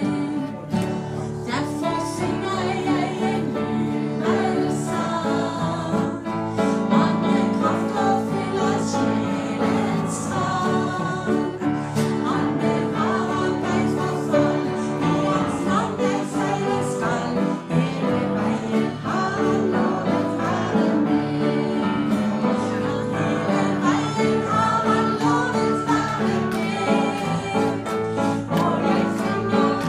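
A woman singing a Norwegian gospel hymn into a microphone, accompanied by acoustic guitar.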